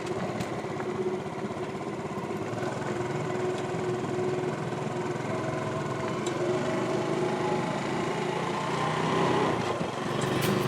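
Small vehicle engine running steadily as the vehicle drives off, rising a little in level near the end.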